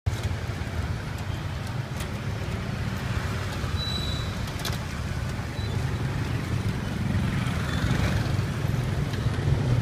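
Steady low rumble of street traffic, growing a little louder near the end, with a few faint clicks.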